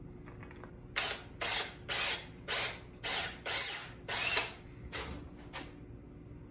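Handheld drill boring out a hole in a wooden tool handle, run in short bursts: about eight quick bursts, then two fainter ones.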